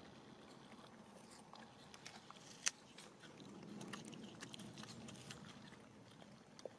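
Faint, scattered crunching clicks of a baby rhesus macaque biting and chewing a piece of fruit, with one sharper click a little under three seconds in.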